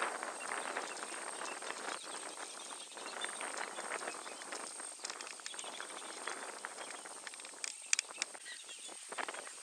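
African elephants shifting about in dry bush: a continuous crackle of rustling, snapping brush and shuffling feet, with a steady high-pitched whine behind it.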